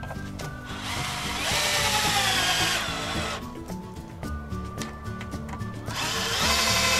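Cordless drill driving Spax wood screws through a board into a wooden wall, twice. Each run lasts two to three seconds, and the motor's pitch falls as the screw bites in and loads it. The second run starts near the end.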